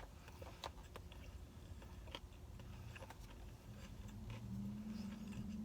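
Quiet chewing: faint, scattered mouth clicks and smacks as a person eats takeout Chinese food, with a low steady 'mm'-like hum near the end.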